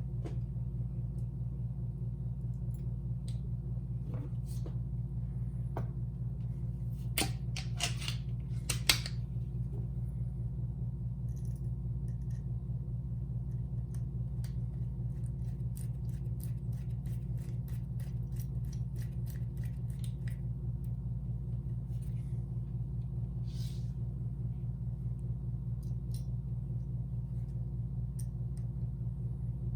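Small metal clicks and taps of a door handle and lock mechanism being reassembled by hand, with a sharp knock about 9 s in and a run of quick little clicks in the middle. A steady low mechanical hum runs under it all.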